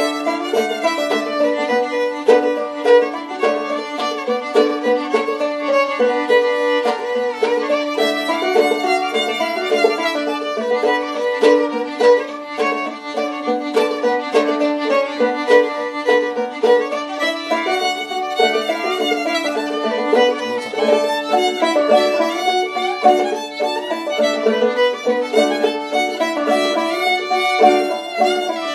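Old-time fiddle and banjo duet. A handmade maple-and-red-spruce fiddle bows the melody over a steady drone, while a handmade cherry-and-rosewood banjo picks a driving rhythm beneath it.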